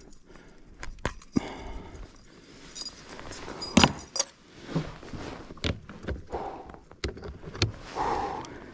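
Handling noise in a fishing kayak: irregular knocks and thuds against the hull and light metallic clinks of tackle, the loudest knock a little under four seconds in.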